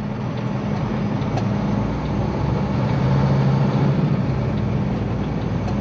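Semi-truck's diesel engine running as the truck drives, heard from inside the cab, a steady low hum that grows a little louder about three seconds in.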